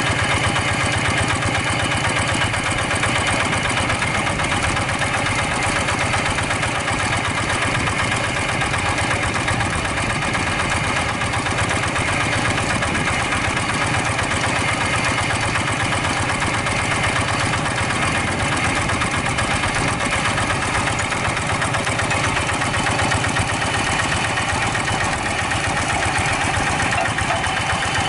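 Single-cylinder diesel engine of a two-wheel hand tractor idling steadily with an even, unbroken beat while the machine stands stuck.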